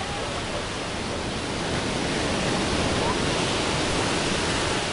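Ocean surf: a steady rushing wash of breaking waves that swells louder about two seconds in.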